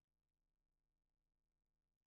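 Near silence: a pause between sentences of synthesized speech.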